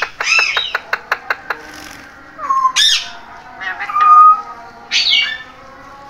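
Alexandrine parakeets calling: a squawk, then a quick run of about six sharp clicks, further squawks and a short held whistle-like call about four seconds in, the loudest sound.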